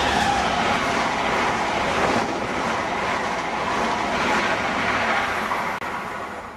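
Passenger coaches of a locomotive-hauled train rushing past at speed, a steady roar of wheels on rail. The noise eases as the last coaches go by and drops off sharply near the end.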